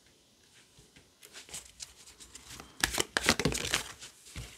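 A deck of tarot cards being handled and shuffled by hand: a run of quick flicks and slaps of card on card, densest and loudest about three seconds in.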